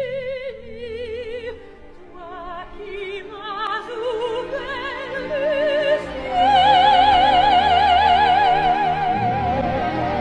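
Operatic singing with heavy vibrato: a run of shorter notes, then a long, loud, high held note starting about six seconds in.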